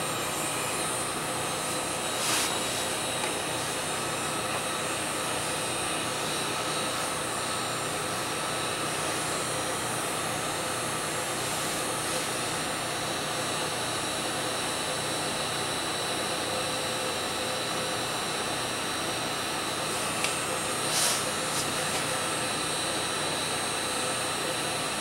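Black & Decker heat gun running on its low setting, a steady blowing-air and fan noise with a thin steady whine, as hot air is played over a circuit board to melt the solder. A brief knock or click about two seconds in and another near the end.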